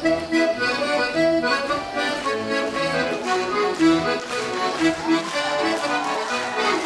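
Accordion playing a lively traditional English morris dance tune with a steady rhythm.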